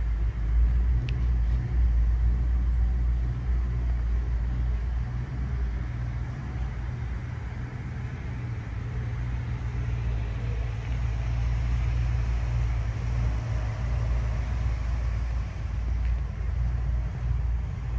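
Aston Martin DB2/4's 2.6-litre twin-cam straight-six idling steadily, a low even rumble.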